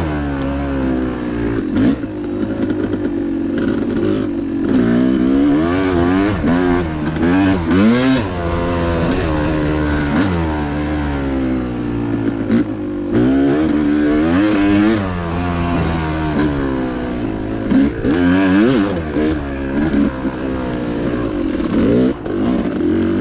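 Yamaha YZ250X single-cylinder two-stroke dirt bike engine being ridden hard, revving up and dropping back over and over, with the pitch rising and falling every second or two. A few short clatters cut through.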